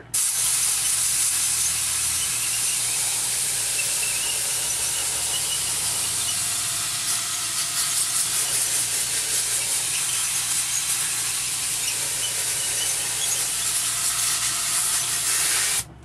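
Compressed air hissing steadily from a blow gun on an air-compressor hose, blasting into the saturated front coil of a window air conditioner to push water and trapped dirt out through the fins. The air cuts off abruptly near the end.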